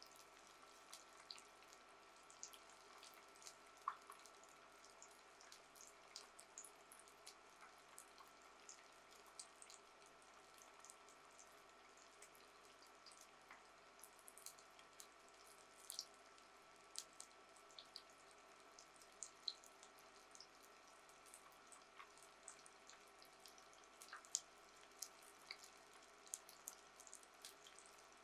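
Flour-coated tofu deep-frying in oil at a low frying temperature (about 160 °C): a faint steady sizzle with irregular small crackles and pops, several a second.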